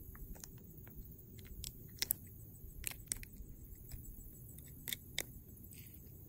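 Faint handling sounds of fingers working a hook out of a small fish's mouth: scattered light clicks and taps, a few seconds apart, over faint low background noise.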